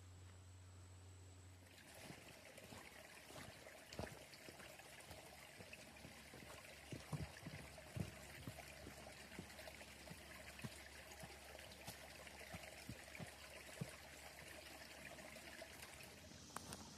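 Faint trickle of water running off rocks in a small seasonal stream, a steady splashing hiss with scattered light taps, starting after a steady low hum that cuts off about two seconds in.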